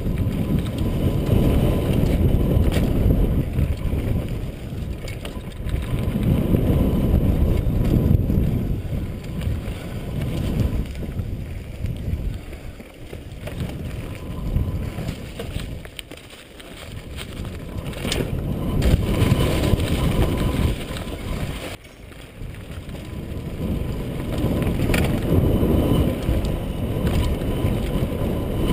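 Rumble and rattle of a mountain bike rolling fast down a dirt forest trail, mixed with wind rushing over a helmet camera's microphone, rising and falling in waves with a couple of quieter dips.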